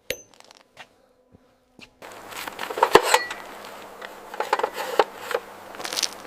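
Small clicks and taps of repair work on an oven. A sharp click comes at the start, then a few sparse ticks. From about two seconds in, a busier run of irregular clicks and taps plays over a faint steady low hum.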